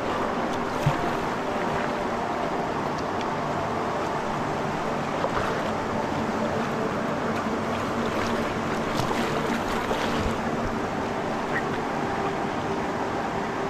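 Steady rush of river water around a raft, with a few light splashes or knocks.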